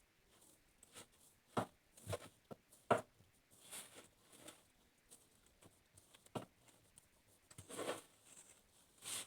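Slime being handled: scattered soft squishes and sticky clicks, irregular, with quiet gaps between.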